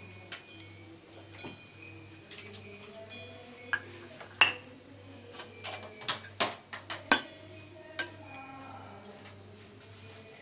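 Stainless-steel bowl and mixer-grinder jar clinking and knocking as soaked rice and grated coconut are tipped and scraped into the jar. The clinks are irregular, loudest about four and a half and seven seconds in, over a faint steady low hum.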